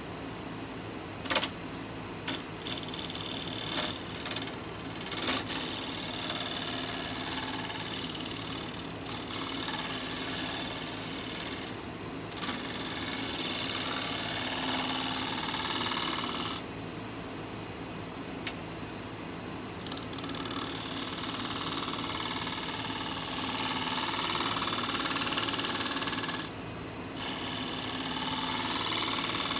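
Wood lathe running with a steady hum while a round-nose scraper cuts the bottom of a natural-edge pear bowl, making a hissing cut that comes and goes. A few sharp ticks come in the first several seconds. The cutting stops for a few seconds past the middle and again briefly near the end while the lathe keeps running.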